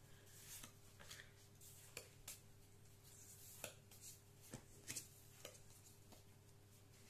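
Faint, scattered light taps and rustles of Pokémon trading cards being handled and flipped, over a steady low hum.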